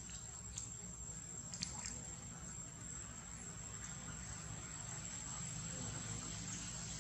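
Insects droning steadily in the forest, with a thin high whine. Two faint clicks come about half a second and a second and a half in.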